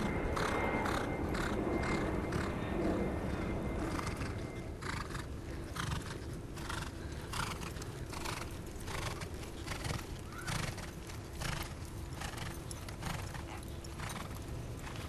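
Hoofbeats of a thoroughbred racehorse and its pony horse on a dirt training track: an irregular run of soft strikes that grows distinct about a third of the way in.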